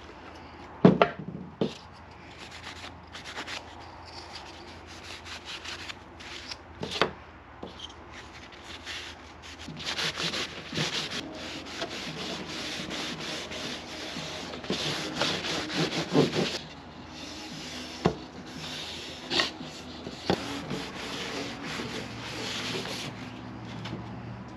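Paper towel rubbing back and forth along wooden trim strips, wiping on an oil finish, in runs of scraping strokes. A few sharp knocks stand out, the loudest about a second in and around 16 seconds.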